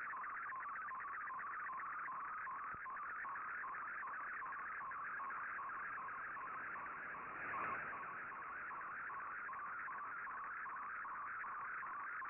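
Shortwave data signal from an MFSK picture transmission, received on an Icom IC-R8600 receiver: a fast-fluttering tone confined to a narrow band, carrying an image to the decoder. A single click comes a little past halfway.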